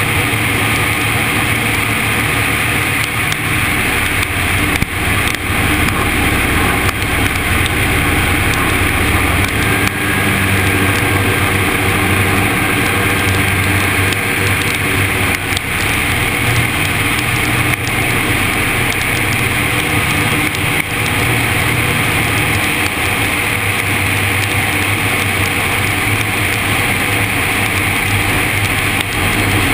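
Zenair CH 701 light aircraft's engine and propeller running steadily in flight, heard from inside the cabin.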